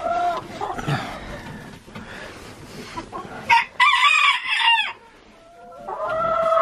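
Chickens calling: a loud, drawn-out call about three and a half seconds in, and another that starts near the end.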